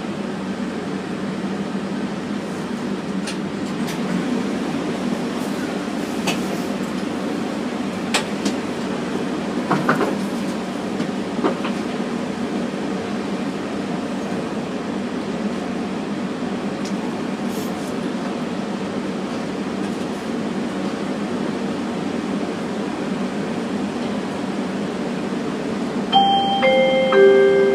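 Steady hum and hiss of an airport people-mover train standing at a station with its doors open, with a few faint clicks. Near the end a three-note descending chime sounds, the warning before the doors close and the train departs.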